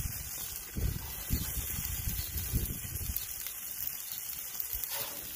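Cheese and a folded tortilla frying on a hot Blackstone flat-top griddle: a faint steady sizzle. Irregular low rumbles of wind gust on the microphone over it.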